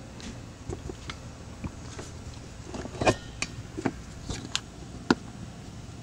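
Scattered knocks, clunks and clicks of a refrigerant recovery cylinder and its attached hoses being handled and set down onto a digital refrigerant scale, the strongest knocks coming in the middle of the stretch.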